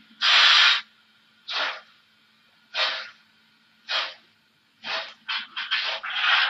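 Steam-exhaust chuffs from the sound module of a Märklin HO BR 50 steam locomotive model: a longer hiss, then puffs about one a second that come quicker and closer together from about five seconds in, over a faint steady hum.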